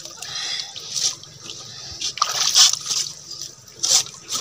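Water splashing and dripping around a person wading chest-deep, moving his arms in the water while working at a bamboo slat fence. There are a few short splashes about a second apart.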